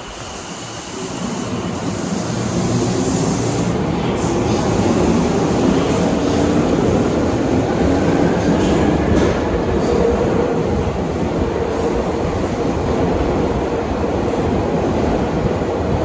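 Tokyu 8500 series electric train pulling away from an underground platform and accelerating past: traction motor whine rising slowly in pitch over the rumble of wheels on rail. It gets louder over the first few seconds, with a few clacks as the wheels cross rail joints.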